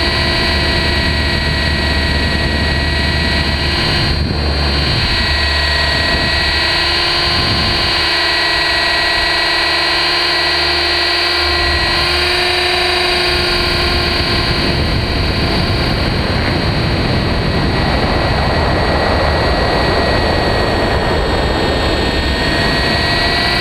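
Radio-controlled helicopter's motor and rotor heard up close from a camera mounted on the helicopter: a steady whine of several pitches over a constant hiss, shifting slightly a couple of times as it manoeuvres.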